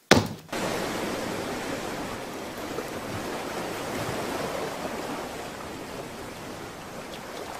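Ocean surf washing onto a beach: a steady rushing wash of waves that slowly eases, after one short sharp hit right at the start.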